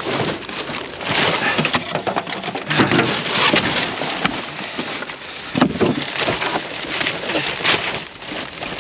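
Rummaging through a pile of junk: continuous rustling, crackling and clattering of debris being pushed and pulled about.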